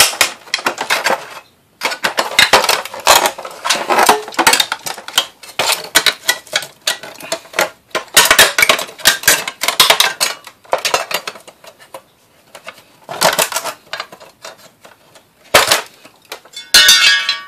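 Stainless steel parts of a dismantled aquarium light clattering and clinking as they are worked loose and pulled out. The sound comes in irregular runs of sharp metallic clicks and knocks with a few short pauses, and there is a brief ringing tone near the end.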